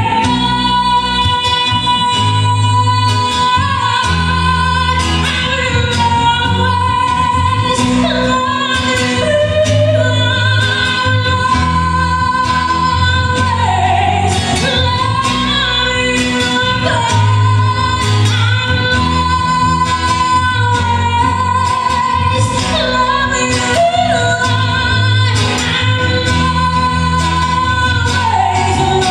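A song with a woman singing long held notes over a steady bass line and a drum beat.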